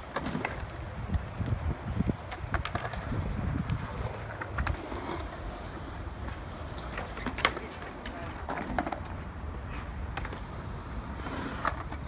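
Skateboard wheels rolling on a concrete bowl, a steady low rumble with several sharp clacks from the board.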